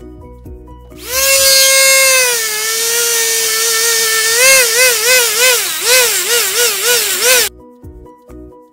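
Handheld electric rotary tool carving into a wooden root, starting about a second in with a high whine. Its pitch sags as the bit is pressed into the wood, then wobbles up and down about three times a second as the bit bites and eases off. It cuts off sharply near the end.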